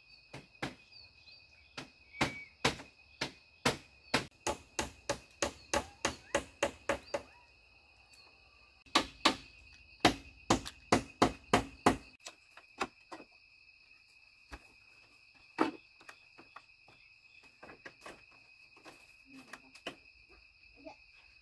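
Hand-tool blows striking wood, about two to three a second, in two runs with a short pause between, followed by a few scattered lighter knocks. Insects drone steadily throughout.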